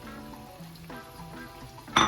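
Background music of gentle repeated notes, with faint kitchen sounds beneath. There is a sharp clink right at the end.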